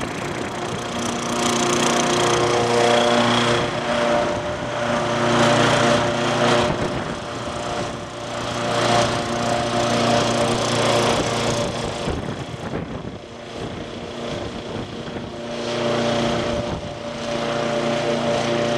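Remote-controlled lawnmower's engine running steadily, its sound swelling and fading in turns.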